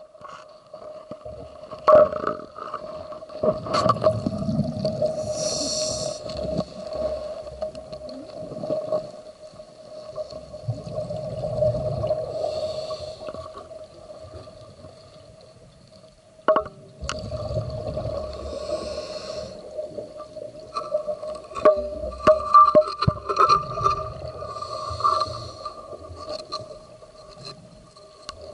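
Scuba diver breathing through a regulator underwater: about four breaths, each a low rush of exhaled bubbles with a hiss, coming roughly every six seconds over a steady hum.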